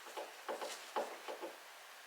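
A series of light clicks and knocks, about five or six in two seconds, as door hardware and hand tools are handled during a door lockset installation.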